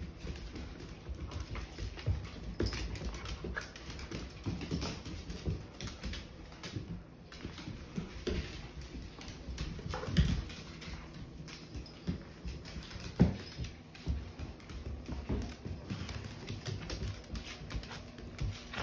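Several dogs playing tug of war over a plush toy: claws clicking and scrabbling on a hardwood floor in irregular bursts, with low play growling.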